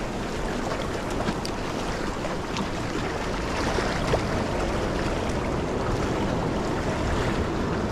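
Surf washing and splashing against the rocks of a stone jetty, a steady rush of water mixed with wind on the microphone.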